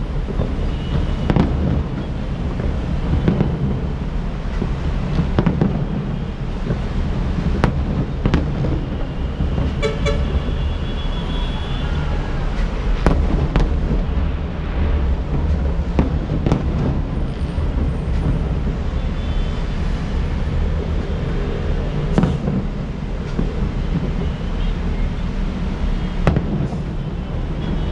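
Aerial fireworks going off in a string of bangs, one every second or two, over a steady low rumble of city traffic. A vehicle horn toots about ten seconds in.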